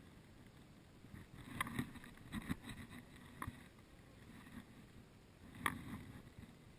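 Scattered rustles and snaps of someone moving through forest undergrowth: a cluster of short crackles in the first half and one sharper snap near the end.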